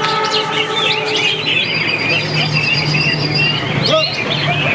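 Many caged songbirds singing at once, a dense, continuous chorus of overlapping chirps, trills and whistles, over a steady low hum.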